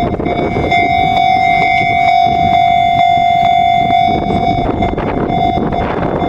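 Japanese railway level-crossing warning bell of the electronic 'Chichibu' type, ringing a steady repeated ding about twice a second over a low rumble.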